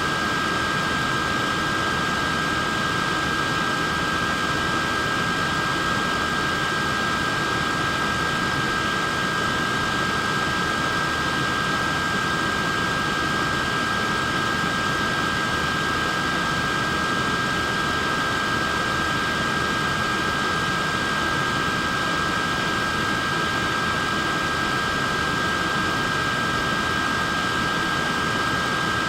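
Portable neck fan running steadily: an even rush of air with two close, steady high-pitched tones over it.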